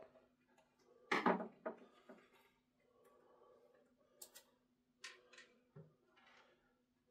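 Handling noises from a wooden loudspeaker cabinet and its bass driver as the driver is worked loose and lifted out: scattered knocks, clicks and scrapes, the loudest knock about a second in, over a faint steady hum.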